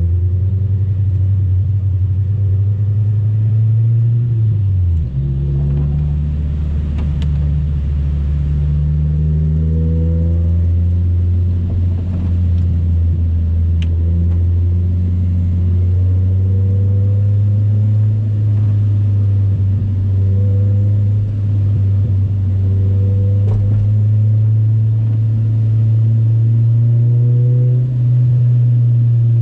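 Honda Civic EK coupe driving, its engine and road noise a steady low drone. The engine note drops about five seconds in, holds steady, then rises slightly near the end.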